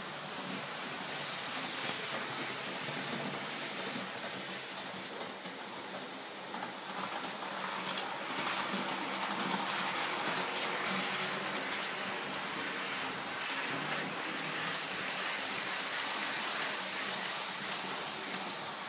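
Model passenger train running along the track: a steady rushing hiss of wheels on rails and the small electric motor, growing a little louder through the middle and later part.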